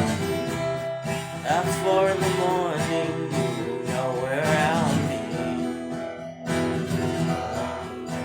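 Acoustic guitar playing a song intro, with a wavering melodic line over it twice.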